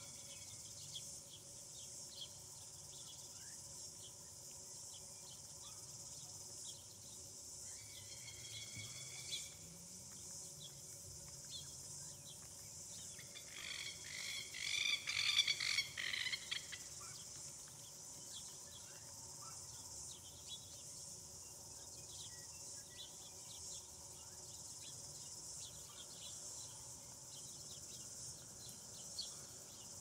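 Steady outdoor insect chorus, a high continuous hiss with faint ticking. About halfway through, an animal calls loudly for a couple of seconds in a quick run of pulsing notes.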